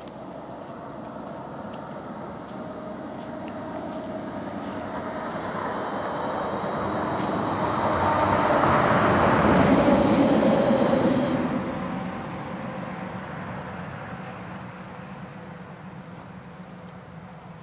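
A vehicle passing by, growing steadily louder to a peak about ten seconds in and then fading away.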